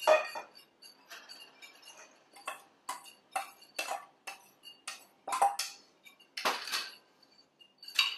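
A stainless steel mixing bowl clanks down on the counter, then a metal spoon taps and scrapes against a steel bowl in a run of sharp clinks, about two a second, as diced onion is scraped out into the bigger bowl.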